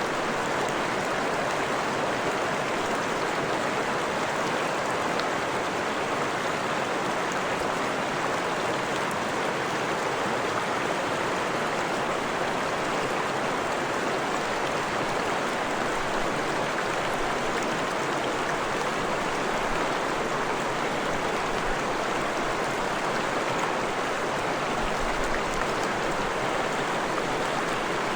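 Freshwater forest stream running steadily, a constant rushing and splashing of water.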